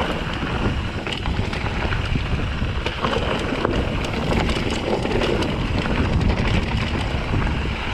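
Wind rushing over the camera microphone while a mountain bike rolls over a rocky trail, with many small clicks and clatters from the tyres and bike over the rocks.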